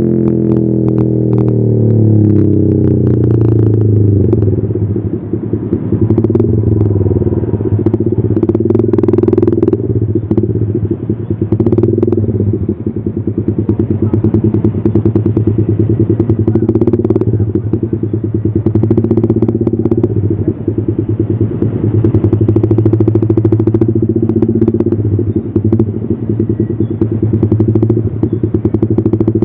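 Yamaha XSR 155's single-cylinder engine running through an aftermarket CLD Monster exhaust: the revs fall back over the first few seconds, then it settles into a steady idle that swells slightly now and then.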